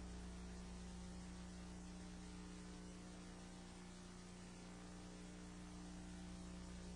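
Faint, steady electrical mains hum with a low hiss underneath: room tone picked up through the meeting's microphone system.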